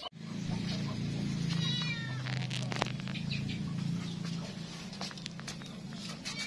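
Domestic cat meowing once, about a second and a half in, over a steady low hum, with a few sharp clicks.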